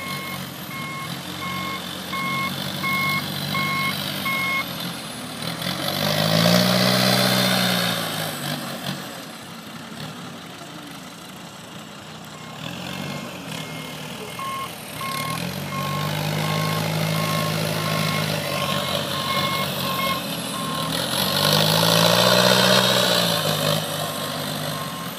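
Rough-terrain forklifts at work: a backup alarm beeps at about two beeps a second, stopping and starting, while forklift engines rev up and back down twice, loudest about seven and twenty-two seconds in.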